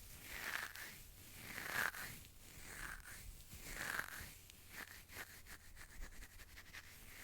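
Fingernails scratching back and forth on a box in slow, even strokes, about one stroke every 0.7 seconds. About halfway in, a run of quick, light nail taps joins in.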